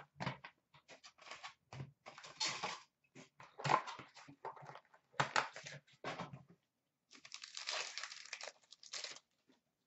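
Cardboard hockey card box and its foil-wrapped packs being handled: faint, irregular rustling and crinkling as the packs are pulled out and stacked, with a longer stretch of wrapper crinkling about seven seconds in.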